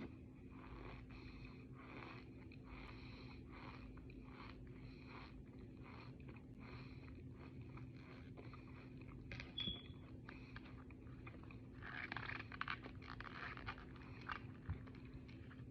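Close-up chewing of scented cornstarch: a regular run of soft crunching and mouth-smacking strokes, a little more than once a second, growing denser and louder near the end.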